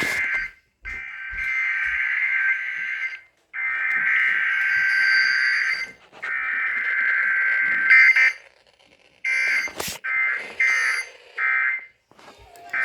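Emergency Alert System Required Weekly Test: buzzing SAME digital data bursts, three long header bursts with brief gaps, then after a pause three short end-of-message bursts. There is no attention tone or voice message.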